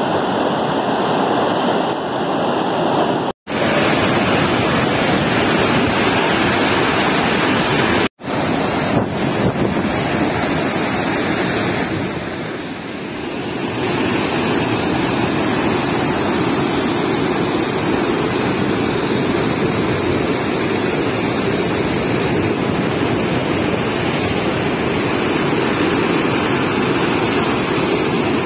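Floodwater rushing out of a dam's spillway gates, a loud, steady rush of falling and churning water. The sound cuts out for an instant twice in the first eight seconds.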